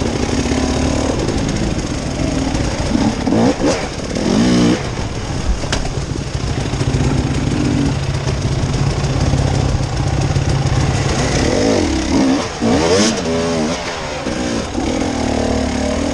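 Off-road motorcycle engine running, with the revs rising and falling about three seconds in and again near the end, and holding steady in between.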